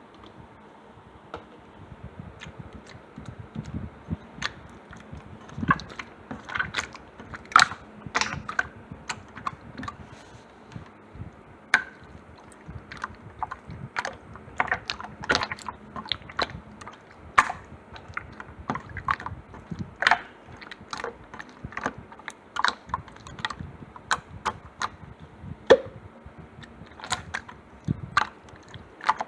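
Slime being squeezed and poked by hand, making irregular sharp clicks and little pops of trapped air.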